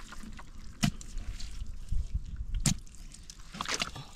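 A thin stick jabbed into a waterlogged mud hole, giving three sharp, wet smacks and squelches, probing the burrow for catfish.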